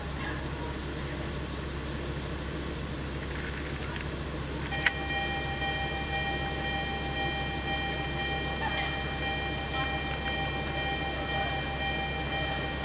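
Diesel railcar idling at a station with a steady low rumble. About three and a half seconds in there is a short hiss, then a sharp click just before five seconds, after which a steady high-pitched tone starts and keeps sounding.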